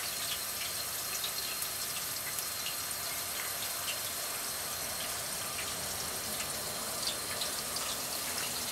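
Water boiling in a vapor phase soldering tank, a steady hiss with many small scattered pops of bubbles; it is the water layer above the Galden fluid boiling off.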